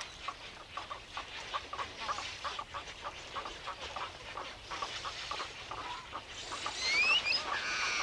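A nesting waterbird colony calling: a dense chorus of short, rapid calls, with a few rising whistled notes near the end, when it grows louder.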